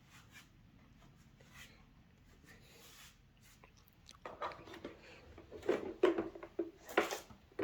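Plastic parts of a bagless vacuum cleaner being handled: faint rustling at first, then from about four seconds in a run of clicks, knocks and rubbing, loudest near the end.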